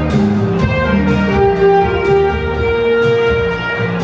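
Two saxophones playing a duet melody in held, sustained notes over a backing track with a bass line and a steady beat.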